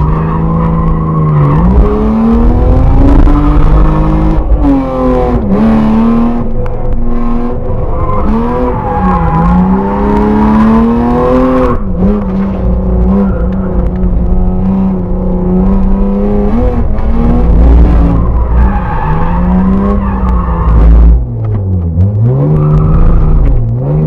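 BMW 325i E36's straight-six engine heard from inside the cabin while the car is being drifted. The revs climb and hold high, then drop sharply several times before picking up again.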